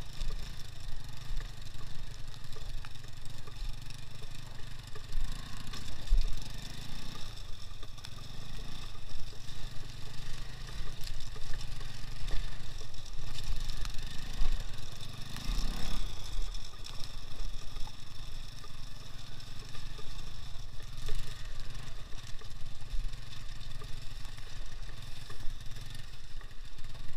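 Engine of a two-wheel-drive off-road motorcycle running steadily as the bike rides over rough ground, with a low hum and a few brief swells in loudness.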